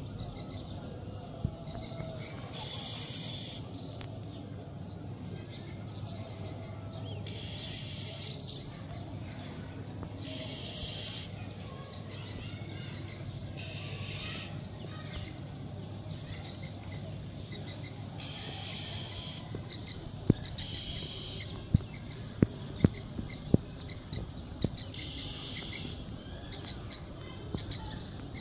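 Birds calling: a short high whistled note that bends downward, repeated every few seconds, with bouts of high chattering chirps in between, over a steady low rumble. A few sharp clicks sound in the second half.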